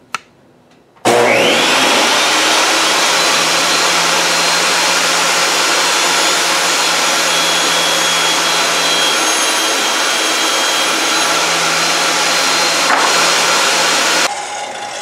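Benchtop table saw switched on about a second in, its motor whining up to speed, then running steadily at full speed while redwood fence board is cut to length. Near the end it is switched off and the sound drops sharply as the blade winds down.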